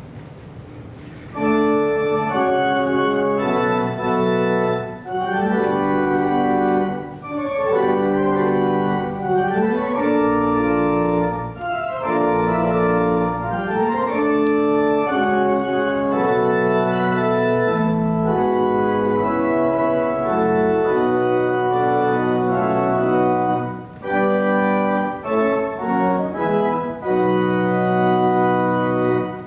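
Church pipe organ playing sustained chords, coming in about a second and a half in, with short breaks between phrases.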